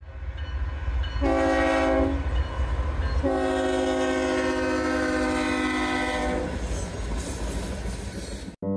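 A diesel freight locomotive's air horn sounds several notes at once: a short blast about a second in, then a long blast of about three seconds, over the low rumble of the train. The sound cuts off suddenly near the end.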